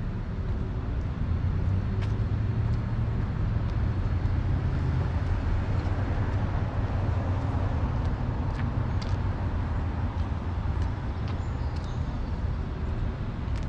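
Steady low motor-vehicle engine hum, with a few faint ticks over it.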